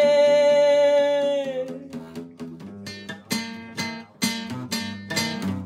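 A man's voice holds a sung note for about a second and a half, sliding down a little as it ends; then an acoustic guitar is strummed on its own in a steady, unhurried rhythm.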